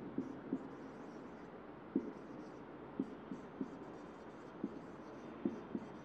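Stylus tapping and scraping on an interactive whiteboard while words are written by hand: faint, with about ten short, irregular taps over a steady low hiss.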